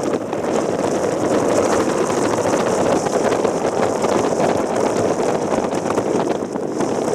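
Strong typhoon wind buffeting the microphone: a loud, steady rushing noise.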